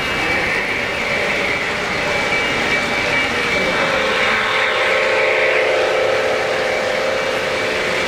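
O-gauge three-rail model trains running along the track, a steady rolling noise. A held humming tone comes in about halfway through.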